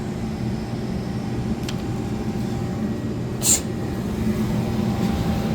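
Gas furnace running with a steady hum, burners lit on a gas valve diagnosed as failing. A light click comes near the second mark, and a brief scrape about three and a half seconds in.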